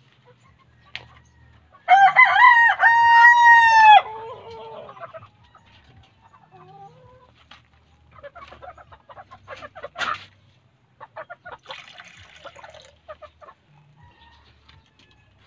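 A rooster crows once, loud and about two seconds long. It is followed by faint scattered clicks and a sharp knock about ten seconds in.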